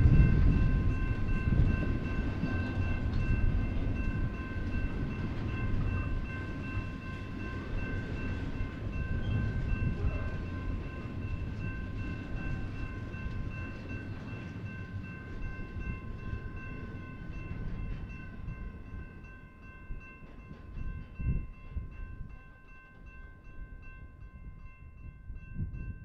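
Double-stack intermodal freight train rolling past, its wheel and car rumble fading as the last cars go by, with a few knocks near the end. A grade-crossing warning bell rings steadily over it.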